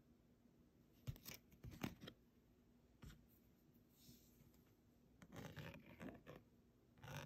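Faint handling noise from a plastic unlock-chip card held in the fingers and metal tweezers brought against it: a few clicks and scrapes about a second in, a single tick a little later, then longer scraping from about five seconds in and again near the end.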